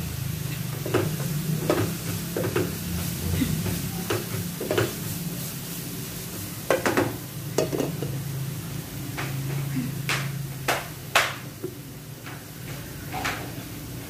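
A cooking utensil stirring breadcrumbs into a sauce in a nonstick frying pan on the stove, with irregular scrapes and taps against the pan, the sharpest about ten to eleven seconds in. Light sizzling and a steady low hum run underneath.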